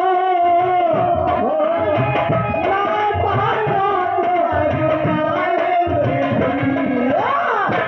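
Live dhola folk singing: a man's voice holding long, wavering notes, sliding upward near the end, over a steady hand-drum rhythm.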